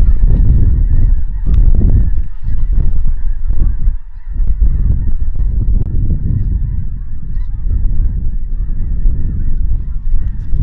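Geese honking over a loud, steady low rumble of wind on the microphone.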